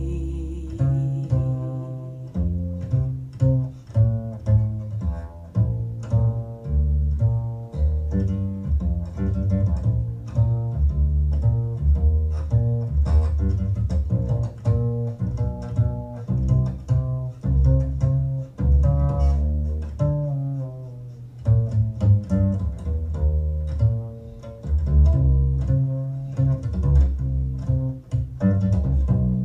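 A jazz recording played through hi-fi loudspeakers during an instrumental break with no vocals. An upright double bass plays a steady run of plucked notes, deep and prominent.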